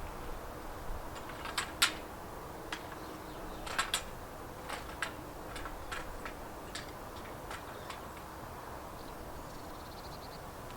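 Scattered light clicks and knocks from bivvy frame poles and fittings being handled, the sharpest about two seconds and four seconds in, dying away after about eight seconds.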